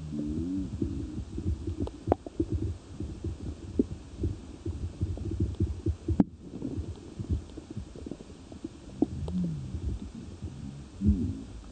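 Underwater sound picked up by a submerged camera: a low rumble and thumping with scattered clicks and knocks, a few short wavering tones near the start and again toward the end, and one sharp click with a brief dropout about midway.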